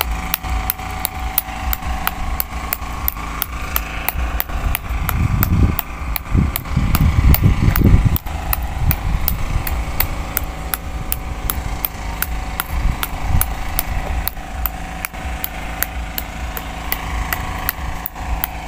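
A steady mechanical hum with a regular ticking about three times a second. Low rumbling runs underneath and is loudest between about five and eight seconds in.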